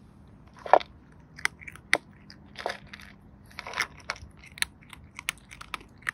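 Cat crunching dry kibble from a bowl: a quick, irregular string of sharp crunches, the loudest just under a second in.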